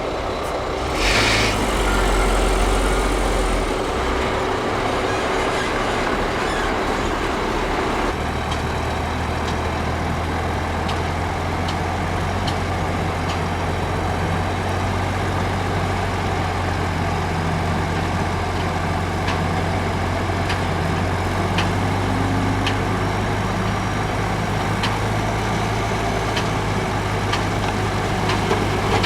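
Heavy diesel construction machinery running steadily, with a short hiss about a second in and scattered light metallic clicks; the engine note shifts about eight seconds in.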